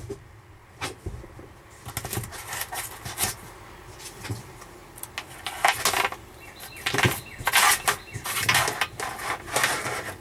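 Irregular knocks, clicks and scraping clatter of hand work with tools and hardware, without a steady motor whine.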